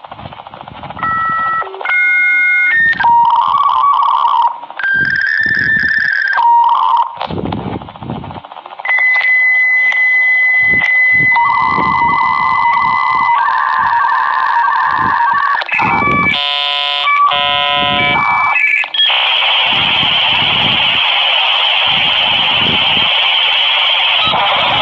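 Dial-up modem connecting: short dialing tone pairs, then a long steady high answer tone, warbling exchanges of tones, and from about nineteen seconds a steady hiss as the modems train and settle into data.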